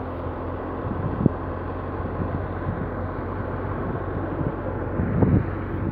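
Tractor engine running steadily with a constant low hum, and a single sharp knock about a second in.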